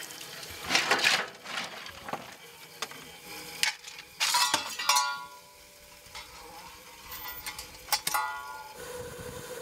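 Steel coal shovel scraping into wet lump coal and clanging against the firebox door of a steam locomotive as it is fired. Several metallic scrapes and clangs with a ringing tail.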